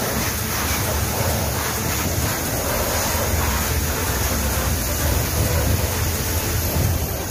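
Electric power sprayer (a KC25A pump driven by an electric motor) running steadily, its lance jetting water against a motorcycle's wheel and bodywork: a continuous spray noise with a steady low hum from the motor and pump underneath.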